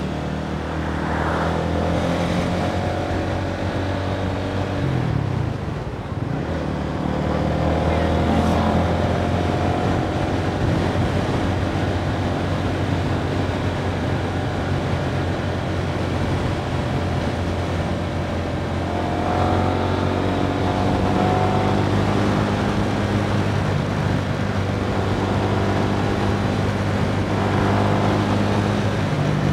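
Honda scooter's engine running while riding, its pitch rising and falling a few times as the throttle changes, over a steady rush of wind and road noise.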